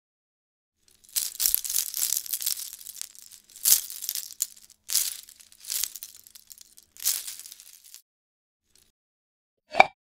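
Metal jewelry chains shaken and jingling, a long rustle and then several shorter bursts over about seven seconds. After a short pause there is one brief blip near the end.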